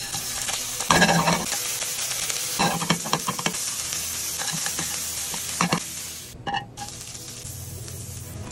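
Seafood frying in hot oil in a non-stick pan: a steady sizzle with several louder bursts as the pieces are stirred. About six seconds in the sizzle turns quieter as sliced onion cooks in the pan and is stirred with a wooden spatula.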